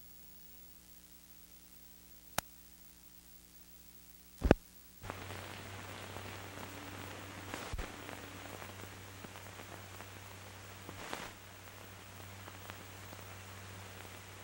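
Recording noise from an old archival film soundtrack: a faint hum, a sharp click, then a louder thump about four and a half seconds in, after which steady hiss and a low hum set in with occasional crackles.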